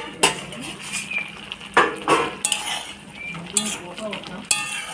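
A spoon stirring chopped banana flower in water boiling in a kadai, knocking and scraping against the pan several times.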